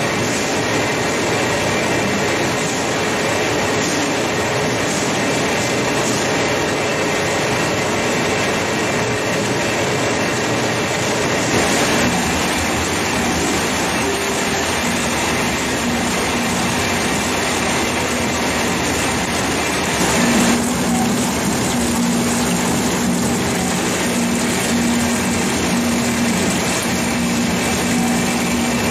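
Citrus juice extraction machinery running: a steady mechanical din, joined about halfway through by a low hum that grows stronger later on.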